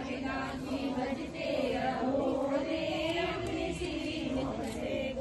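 A group of women singing a devotional chant together, many voices in loose unison.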